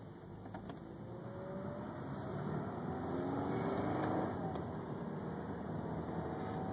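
Subaru car's engine and road noise heard from inside the cabin, the engine note rising gradually as the car accelerates over the first few seconds, then holding steady.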